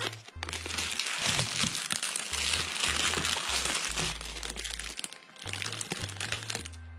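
Thin clear Lexan polycarbonate sheet being handled and flexed, crinkling and crackling for about five seconds, with a shorter burst near the end. Background music with a low bass line plays underneath.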